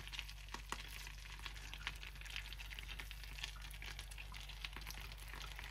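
Butter sizzling in a frying pan as minced lamb kebabs fry in it: a steady fine crackle with scattered small pops.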